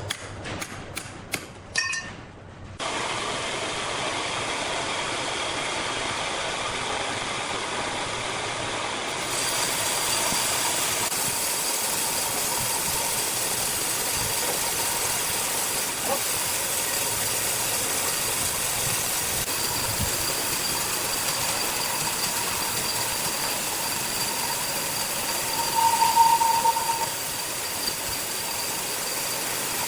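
Sawmill machinery running steadily, a constant mechanical hum and hiss, after a few sharp clicks at the start. A short, louder whine rises out of it near the end.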